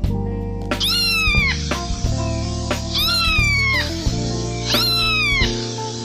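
Domestic cat meowing three times, each meow about a second long and falling in pitch, over background music.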